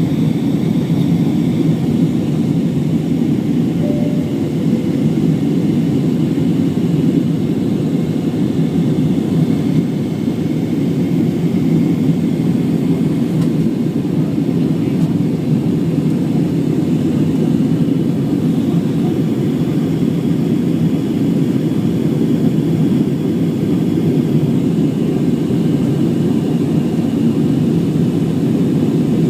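Airbus A320 jet engines and airflow making a steady, low drone, heard from inside the passenger cabin.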